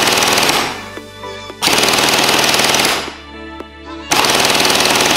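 Jin Ming Gen 9 M4A1 electric gel blaster firing full-auto bursts at around 58 rounds per second on an 11.1-volt battery: a burst ends about a second in, then two more of about a second and a half each follow with short pauses between.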